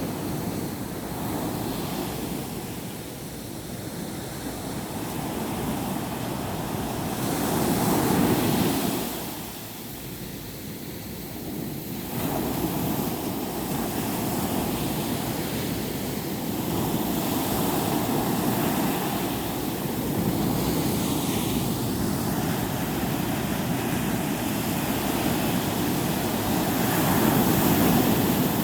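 Sea surf washing onto a beach, a steady rush of water that swells as waves break, loudest about eight seconds in and again near the end.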